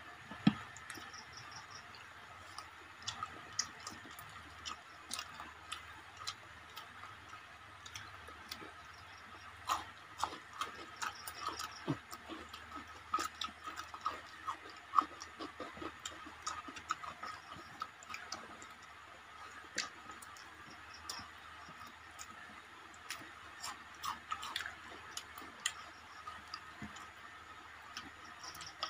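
Close-up eating sounds of people eating rice and curry with their hands: irregular wet clicks and smacks of chewing and of fingers mixing rice on plates, over a faint steady hum.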